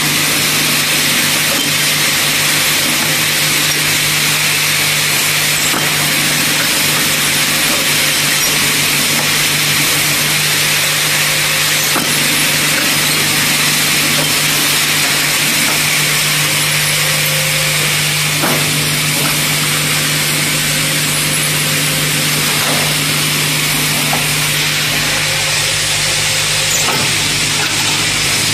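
Copper-tube orbital cutting and double-side countersinking machine running: a steady motor hum under a loud, even machining noise. A few light clicks come in the second half.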